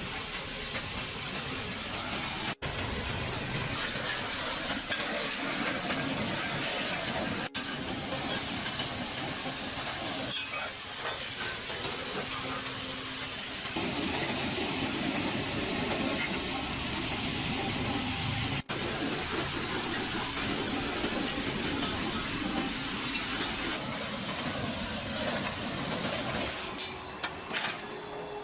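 A steady spraying hiss that runs on across several edit cuts and grows fuller about halfway through.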